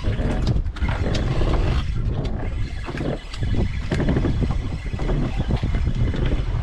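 Wind buffeting the camera microphone: a loud, uneven low rumble that swells and dips in gusts.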